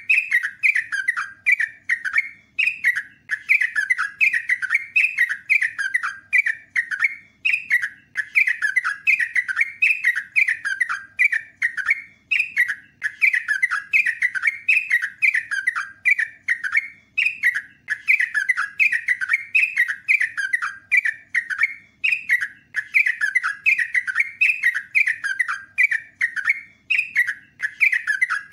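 Yellow-vented bulbul singing a long continuous run of quick, bubbling chattering notes, about four a second, broken by short pauses every five seconds or so.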